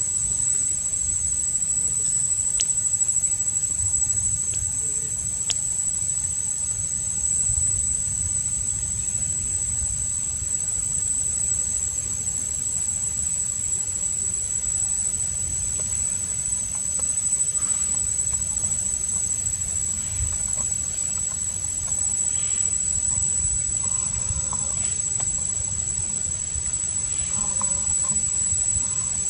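Steady outdoor ambience: a constant high-pitched whine over a low, uneven rumble, with a few faint short chirps in the second half.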